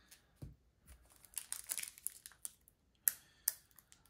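Pokémon trading card packs and cards being handled: foil wrapper crinkling and card stock rustling, in a string of short, irregular rustles and light snaps.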